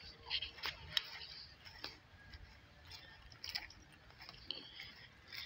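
Footsteps on grass scattered with dry fallen leaves: short crunches and rustles at irregular intervals, over a low rumble of wind on the microphone.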